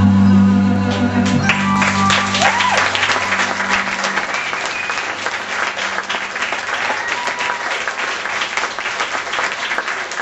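The band's final held chord ends about a second and a half in and dies away over the next few seconds as the audience bursts into applause. The clapping carries on to the end, with a few short cheers over it.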